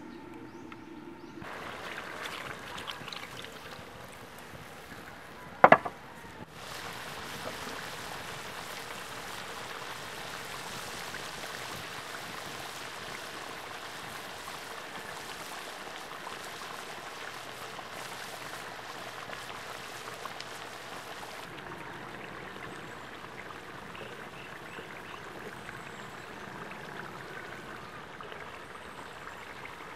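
Pork adobo in thick coconut-milk sauce bubbling at a vigorous boil in a wok over a wood fire: a steady bubbling, sputtering hiss. One single sharp knock with a short ring stands out loudly about six seconds in.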